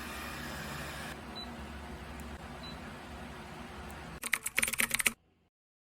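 Steady low hum and hiss, then about four seconds in a quick run of sharp clicks lasting under a second, after which the sound cuts off suddenly.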